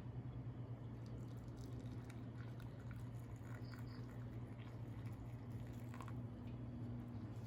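A steady low hum with faint small clicks and taps over it, and a brief pair of high chirps about three and a half seconds in.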